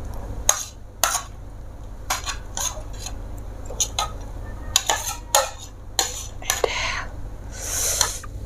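Cutlery clinking against plates and dishes in a string of sharp, irregular clinks, with a short rustling hiss near the end.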